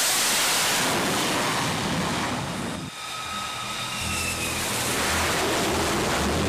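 F-35C's F135 turbofan jet engine at full thrust on a carrier catapult launch: a loud, steady rush of jet noise. Just before halfway it drops off suddenly, then comes back somewhat quieter as another F-35 passes over the deck.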